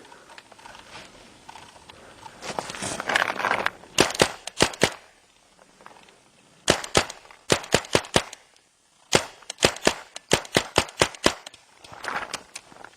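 Paintball marker firing rapid shots in three quick bursts of sharp pops, about five, then seven, then ten shots, with a brief rustle of movement before the first burst.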